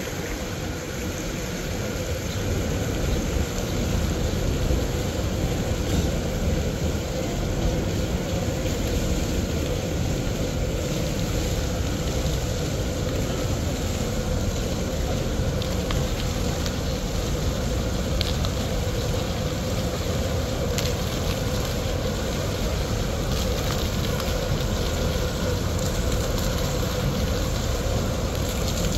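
Fountain jets splashing into a pool in a steady, even hiss over a low rumble, a little louder from about three seconds in.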